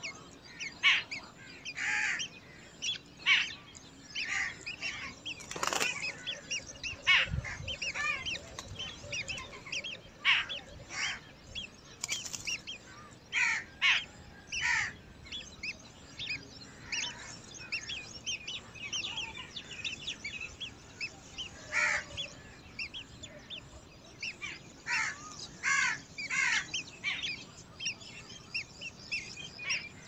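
Birds calling: many short chirps and harsher calls, repeated irregularly, some in quick runs of several notes. There are two brief clicks about six and twelve seconds in.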